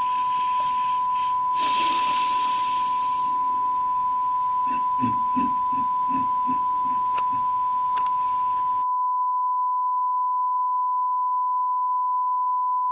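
A continuous electronic tone at one steady pitch, like a long test-tone beep. It is the loudest sound throughout. Faint background noise under it, with a brief hiss about two seconds in, drops away near nine seconds and leaves the tone alone.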